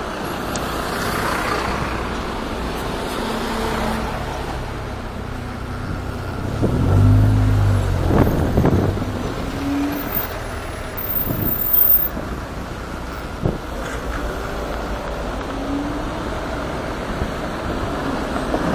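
City road traffic heard from a moving electric scooter: a steady rush of road and wind noise, with a louder low vehicle rumble about seven seconds in and a few sharp knocks after it.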